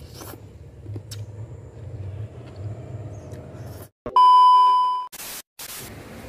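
Colour-bar test-card beep: a steady high tone lasting about a second, starting about four seconds in and fading at its end, followed by two short bursts of TV-static hiss. Before it there is only a faint low hum with a few small clicks.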